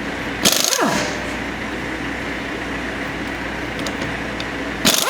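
A 1/2-inch impact gun removing lug nuts: two short bursts, about half a second in and again near the end, each ending in a quickly falling whine as the tool winds down, over a steady background hum.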